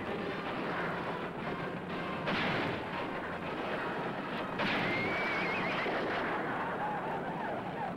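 Battle-scene sound effects on an old TV western soundtrack: a dense din of rifle fire with sudden loud volleys about two and four and a half seconds in, and a horse whinnying in the middle.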